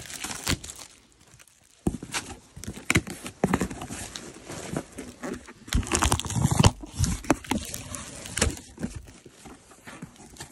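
Plastic stretch wrap being torn and pulled off a cardboard box by hand, then the cardboard flaps handled: irregular crinkling, crackling and tearing, with a short lull about a second in.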